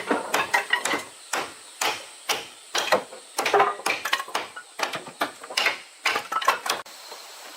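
Repeated sharp knocks on wood, roughly two or three a second in an uneven rhythm, stopping suddenly near the end.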